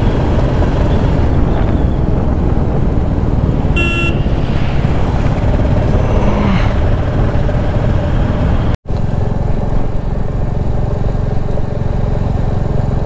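Motorcycle engine running steadily under riding wind and road noise. There is a short horn beep about four seconds in, and the sound drops out for an instant just before nine seconds.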